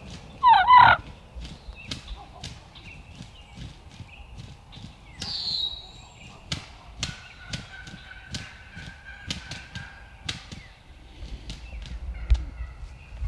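A wild turkey gives one loud, short, wavering call about half a second in. Soft clicks and rustles from the woods follow, with a single low thump near the end.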